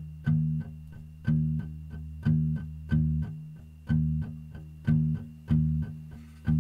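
Acoustic guitar fingerpicked in a steady repeating pattern: a low bass note about once a second, with lighter plucked notes between.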